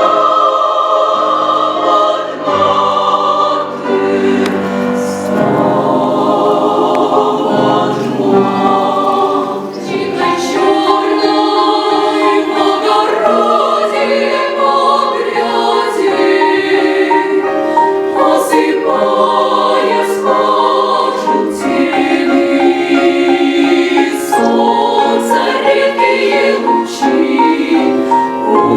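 Women's academic choir singing live in several parts, holding long notes with vibrato that change every second or two.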